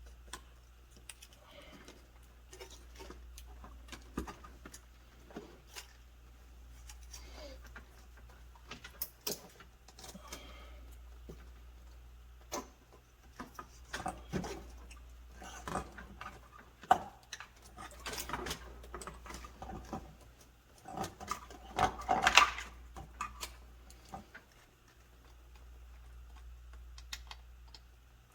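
Scattered plastic clicks and small knocks of wire-harness connectors being handled and plugged onto a replacement refrigerator control board, with a denser burst of crackling clicks about three quarters of the way through. A faint steady low hum runs underneath.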